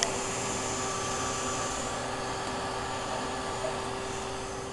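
Bee vacuum's motor running steadily: a constant hum over an even hiss.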